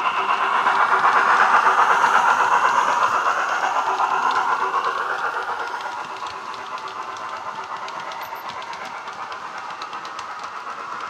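Hornby model locomotive's LokSound DCC sound decoder playing Jamie Goodman's locomotive sound through a small tablet speaker as the model passes, loudest in the first few seconds and then fading. Fine rapid ticking of the model train's wheels on the track follows as the coaches go by.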